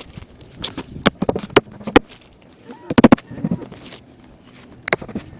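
Irregular sharp knocks on the roof as tar paper is fastened down: single strikes about every half second at first, a quick cluster of several about three seconds in, and one more near the end.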